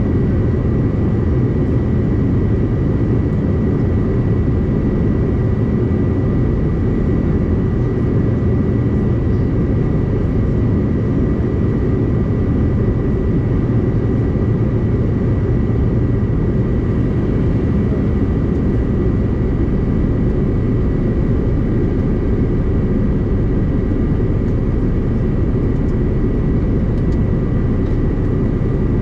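Steady cabin noise inside a Bombardier CRJ-900 regional jet in flight: a deep rumble of airflow and the rear-mounted GE CF34 turbofans, with a constant high whine over it.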